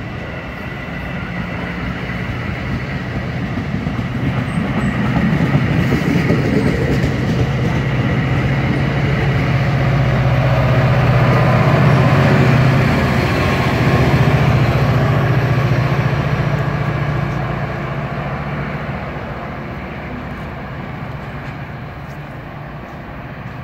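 A diesel-hauled commuter train of bilevel passenger coaches passing close by, wheels rolling over the rails. The locomotive's engine hum grows louder as it nears, is loudest around the middle as it goes by, and fades as the train pulls away.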